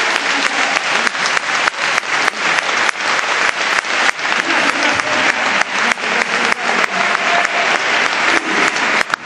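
Audience applauding in a large hall, the clapping falling into a steady rhythm.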